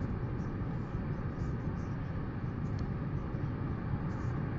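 Steady wind rumble on an outdoor microphone: an even low roar with no distinct events.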